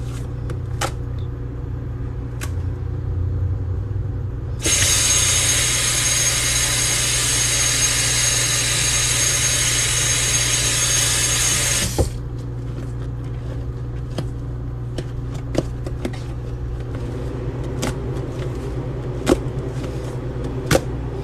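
Kitchen sink faucet running into a sink full of baking soda and dish soap paste for about seven seconds, starting about four and a half seconds in and shutting off sharply. Before and after it there are soft squishes and clicks of hands working the thick paste, over a steady low hum.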